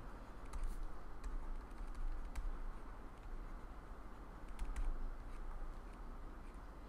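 Faint scattered taps and light scratching of a pen on a writing tablet as words are handwritten, over a low steady hum.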